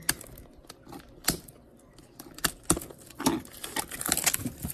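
Scattered sharp clicks and taps of a shrink-wrapped cardboard box being handled and its plastic wrap picked at, turning into a denser run of crackling clicks near the end.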